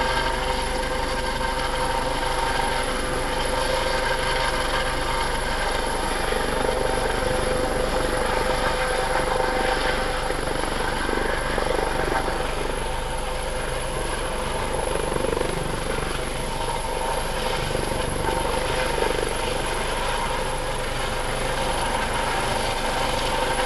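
US Coast Guard MH-65 Dolphin helicopter hovering low over the water, its rotor and turbine running with a steady drone and a constant high whine.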